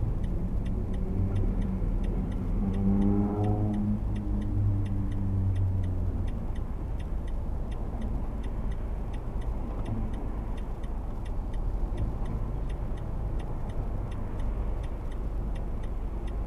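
Road traffic heard from inside a car stopped at a junction: a steady low engine rumble, with a nearby engine revving up about two seconds in and holding for a few seconds before fading back. Faint, rapid, regular ticking runs under it.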